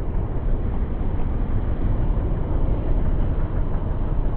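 Steady seaside rumble of surf breaking on a rocky shore mixed with wind buffeting the microphone, with no distinct events.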